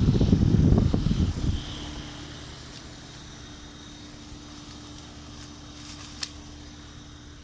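Outdoor unit of a Carrier air conditioner running in heat mode: a loud low rumble for about the first second and a half, then a steady hum with a single steady tone. A short click comes about six seconds in.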